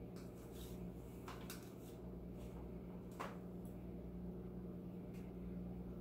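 Light, scattered clicks of a metal fork touching dishes and a plastic fruit container as fruit is picked up and set down, the clearest about three seconds in. A steady low hum runs underneath.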